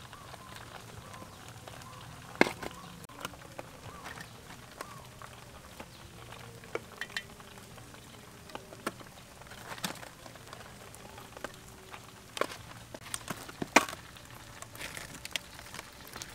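Sauce-coated chicken wings being lifted out of a wok and laid on a black metal baking tray: scattered light clicks and knocks of food and utensils against metal, the sharpest about two and a half seconds in and near the end.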